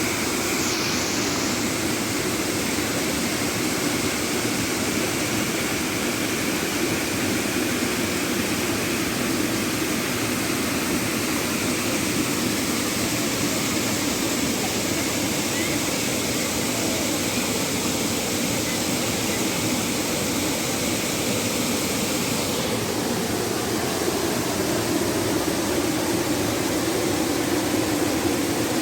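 Steady roar of a waterfall, a continuous rushing of falling water.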